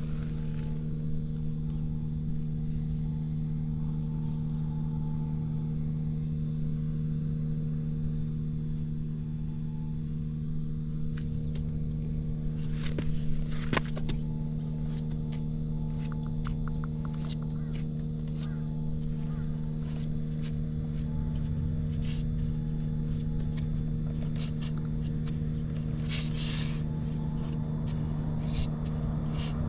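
Suzuki Volty's 250 cc air-cooled single-cylinder four-stroke engine idling steadily and quietly, with no abnormal noises. A few short clicks sound over it about halfway through, and a brief hiss comes near the end.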